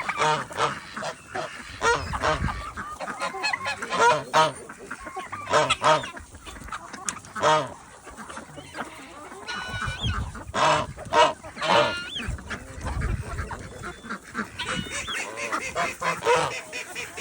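Domestic geese honking, many separate calls one after another.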